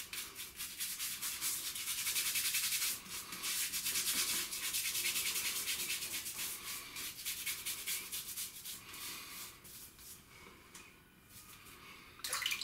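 Thick shaving soap lather being worked over a stubbled face: a fast, crackly scrubbing hiss of many quick strokes, loudest in the first half and fading off toward the end.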